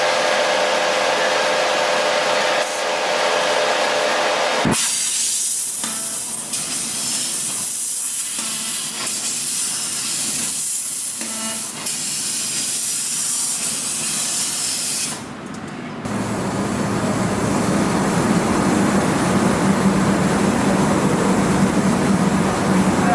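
20 kW fiber laser cutting 10 mm stainless steel plate: the loud, steady hiss of the assist-gas jet blowing through the cut. The hiss changes abruptly about five seconds in and again about sixteen seconds in. The middle stretch is the brightest and highest, and the last part carries a low hum.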